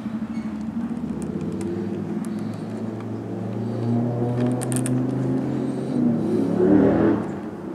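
A motor vehicle engine running, probably passing by: its steady hum grows louder, peaks about seven seconds in, then fades.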